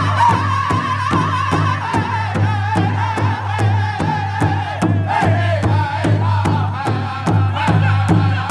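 Powwow drum group singing together in high voices over a large shared hide drum, which several singers strike in unison with drumsticks in a steady, fast beat.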